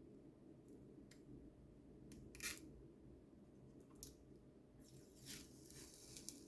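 Faint handling sounds while a keyboard is unboxed: a few short clicks, then a brief rustle of packaging near the end.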